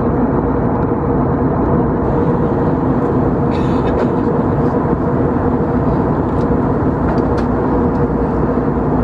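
Steady in-flight cabin noise of an Airbus A321neo: engine and airflow drone with a constant hum, and a brief rustle about three and a half seconds in.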